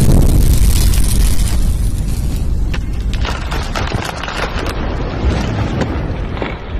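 Deep, explosion-like boom that rumbles on and slowly fades out, with scattered crackles as it dies away. It is an intro sound effect.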